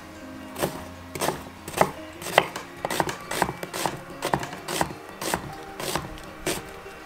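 Chef's knife slicing through an onion and striking a wooden cutting board, a quick, uneven run of about fifteen cuts, two to three a second, that stops near the end. Soft background music underneath.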